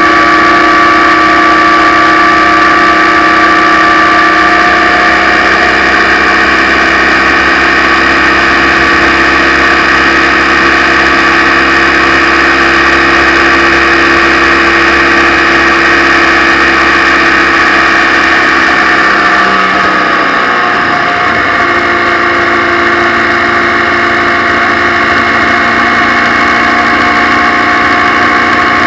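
Motorcycle engine running steadily at road speed. About two-thirds of the way through, its note drops and breaks up briefly, then settles again at a new pitch.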